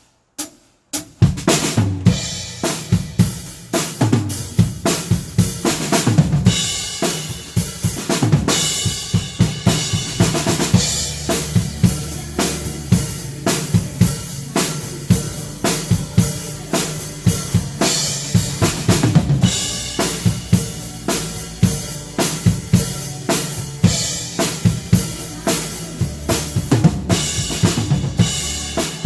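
Drum kit played to a steady beat, starting about a second in: kick drum, snare and hi-hat, with repeated cymbal crashes.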